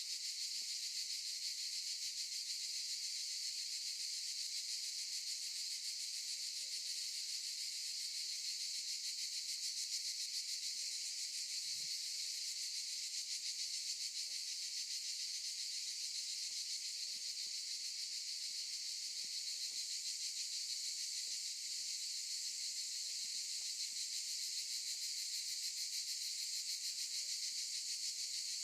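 Cicadas in chorus, a steady, high-pitched shrill buzz with a fine rapid pulse.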